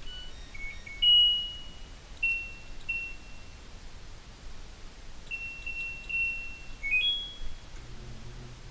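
LG dryer's electronic control panel beeping as it is switched on and its buttons pressed: a series of short beeps at a few different pitches, one held for about a second near the start. A low hum sets in near the end.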